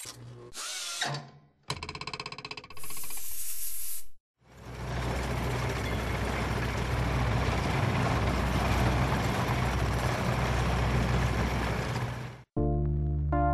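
Intro sound design: short electronic chirps and glitchy buzzes, then a fast buzzing pulse and a burst of hiss that stops abruptly. After a brief gap comes a long dense noisy rumble over a steady low hum, which cuts off suddenly near the end as music begins.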